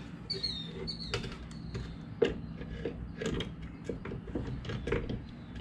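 Scattered metal knocks, clicks and creaks as a replacement MagneRide front strut assembly is pushed up into the front suspension and lined up with its mounting holes, with one sharper knock about two seconds in.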